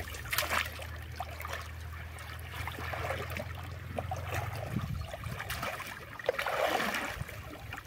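Shallow muddy water sloshing and trickling as someone wades through it, with small splashes. A low steady hum stops about five seconds in.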